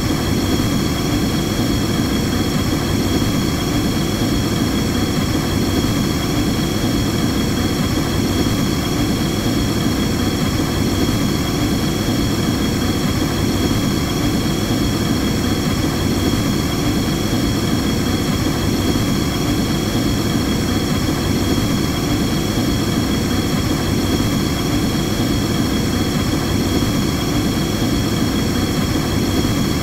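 Gas burner's flame burning steadily: a constant, loud, low rushing noise with no change in intensity, plus faint steady high tones.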